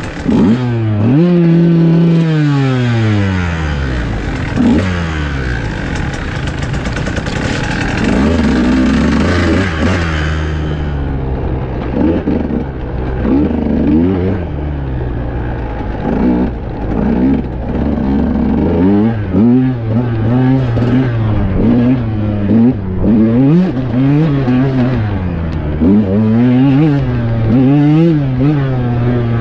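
KTM EXC enduro motorcycle engine under way, the revs dropping steeply early on and then rising and falling again and again as the throttle is worked, quicker near the end. A high hiss covers the first ten seconds or so and cuts off suddenly.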